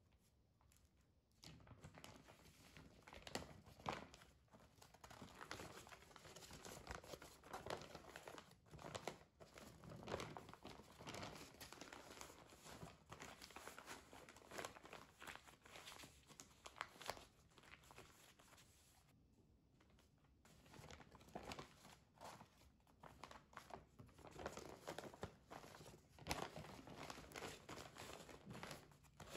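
Brown kraft paper crinkling and rustling as it is folded and pressed around a sandwich, in many small crackles, with a short pause about two-thirds of the way through.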